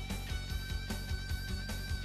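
Rock music with guitar, held notes over a steady drum beat.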